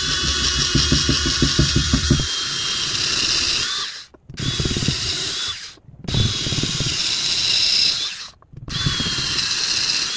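Cordless drill running in reverse with an 11/64-inch bit, opening up existing screw holes in a boat's gelcoat sidewall. The motor whines steadily in four runs broken by brief pauses, with a rough chatter from the bit during the first two seconds.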